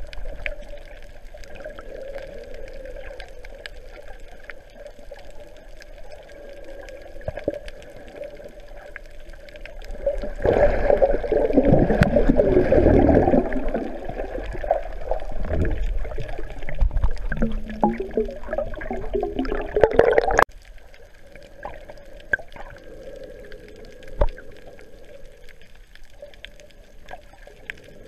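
Underwater water noise picked up by a GoPro in its waterproof housing while snorkeling: a steady muffled wash with faint ticks. About ten seconds in it turns much louder and rougher for some ten seconds, then cuts off suddenly.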